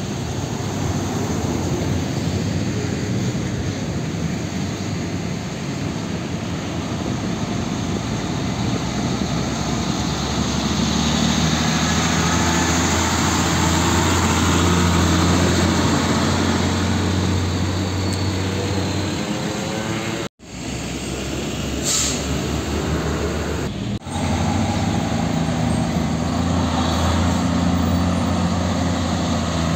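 Heavy diesel cargo trucks passing at low speed, their engines running with a low, steady drone that swells as each truck draws near. The sound breaks off abruptly twice, about two-thirds in, and a brief hiss comes between the breaks.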